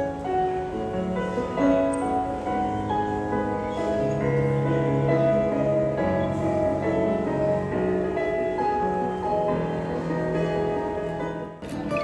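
Electronic keyboard played in a piano voice: a melody over held bass notes, the notes ringing and overlapping. It cuts off abruptly just before the end.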